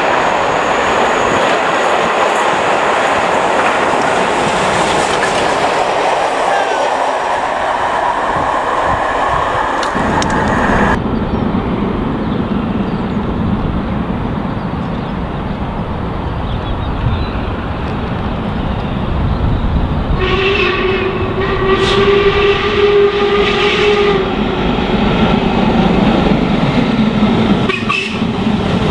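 Steam locomotive running through a station, a steady rush of noise; after a sudden cut about 11 seconds in, a train approaches with a low rumble, a train horn sounds for about four seconds two-thirds of the way through, and the rumble grows louder near the end as a steam locomotive draws in.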